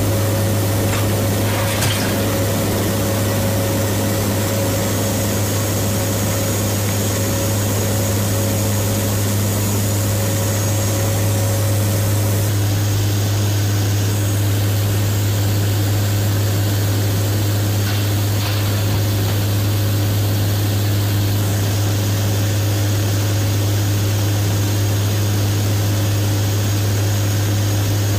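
Steady drone of a WC-130J Hercules's turboprop engines and propellers heard inside the aircraft's cabin, with a deep, even hum beneath a wide rushing noise.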